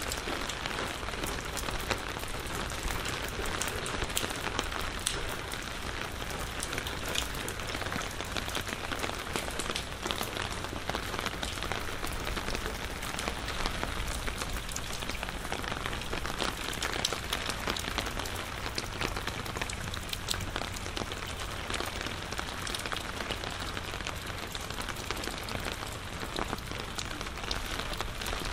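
Steady rain falling, with a dense patter of individual drops.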